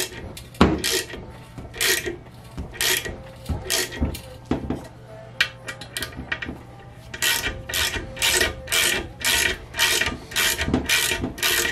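Small hand ratchet clicking in short back-and-forth strokes as bolts are tightened by hand, irregular at first, then a steady run of about two strokes a second in the second half.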